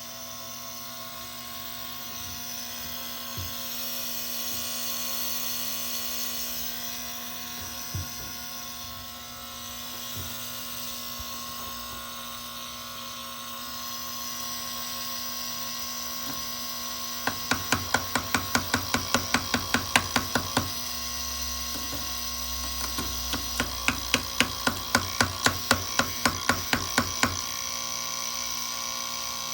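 Steady electrical hum from an HVAC unit, broken twice by runs of rapid, even clicking at about four to five a second: a bad fan relay chattering.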